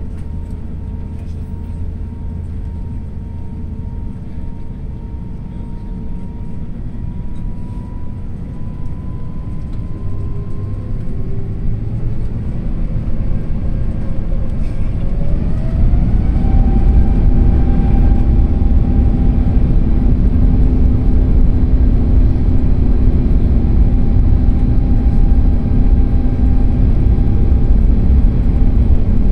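Airbus A350's Rolls-Royce Trent XWB jet engines heard from inside the cabin: a steady whine and rumble, then from about 12 seconds in the whine rises in pitch and the rumble grows much louder as the engines spool up to takeoff thrust, then holds steady and loud.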